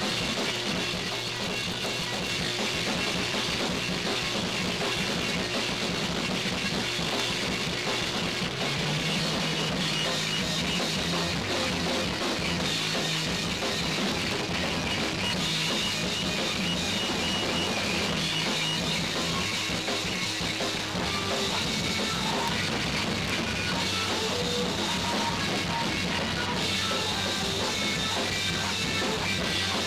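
Noise-rock recording: distorted guitar and drum kit in a dense, unbroken wall of sound, with the low sustained note stepping up in pitch about a third of the way in.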